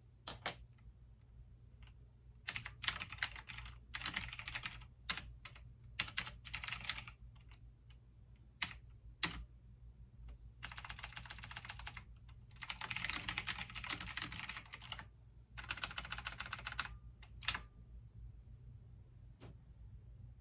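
Typing on a computer keyboard in bursts of rapid keystrokes, broken by single taps and short pauses, over a steady low hum.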